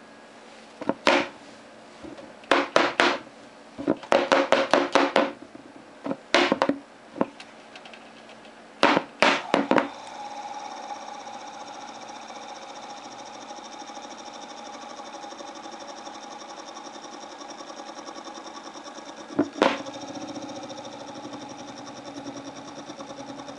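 Defective BMW N46 electric auxiliary water pump powered on the bench. For about the first ten seconds it gives irregular groups of loud crackling clicks, then its motor runs steadily with a whine. There is one sharp knock about three-quarters of the way through.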